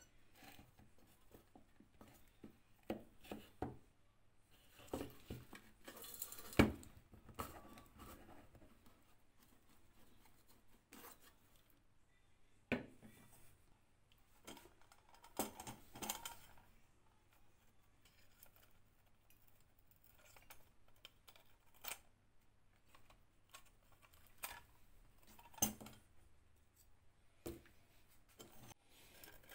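Scattered clinks and knocks of the metal parts of an old Demon Type 235 kerosene stove being handled and set down on a hard tabletop during disassembly, the loudest a sharp knock about seven seconds in.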